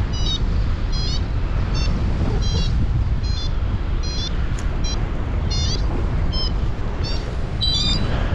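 Wind rushing over the microphone in flight, with a paragliding variometer beeping in short high tones about one and a half times a second, the beeping that signals the glider is climbing in lift.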